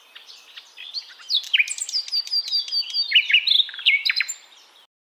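A songbird singing a fast, varied song of chirps, whistles and slurred notes, faint at first and louder from about a second in, stopping suddenly near the end.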